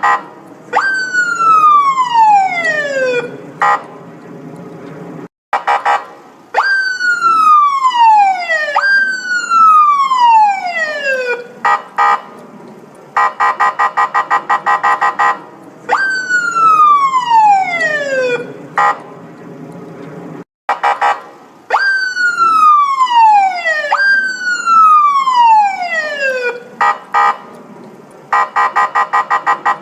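Police car siren running through a repeating cycle. Loud wails each snap up in pitch and then slide down over a couple of seconds, often two back to back. Between them come bursts of a fast pulsing tone, about a second in, in the middle and again near the end.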